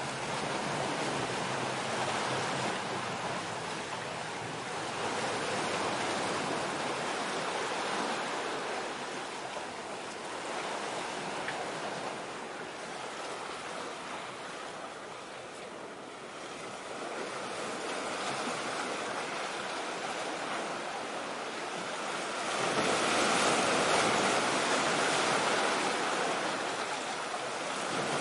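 Sea waves washing: a steady hiss of water that swells and ebbs over several seconds, loudest a few seconds before the end.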